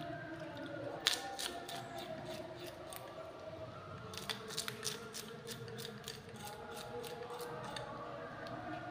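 Plastic fish scaler scraping scales off sardines in a pot of water: a quick, irregular run of small scratchy clicks, with a sharper click about a second in and a dense cluster around four to five seconds.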